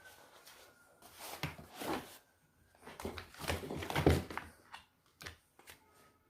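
Gear being handled and packed into a backpack: irregular rustling and shuffling with a few knocks, the loudest about four seconds in.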